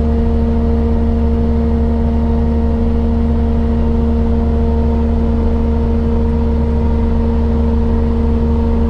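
Vehicle-mounted pesticide mist blower (power sprayer) running at a constant speed while it blasts spray over a rice paddy, heard from inside the cab. It is a loud, unchanging hum with a low rumble.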